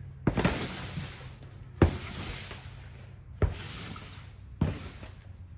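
Clothing being handled and tossed: four rustling swishes about a second and a half apart, each starting with a sharp knock.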